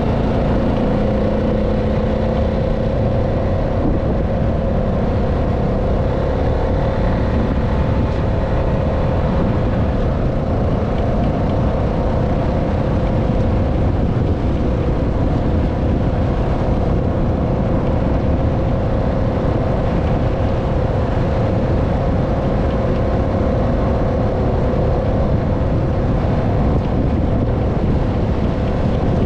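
ATV engine running at a steady pace while riding along a snow trail: an even drone with a steady pitch over a dense low rumble.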